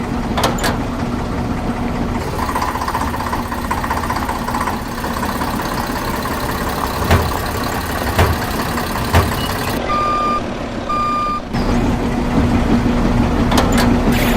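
Toy RC truck running with a steady motor hum, a few sharp knocks partway through, then two electronic reversing beeps.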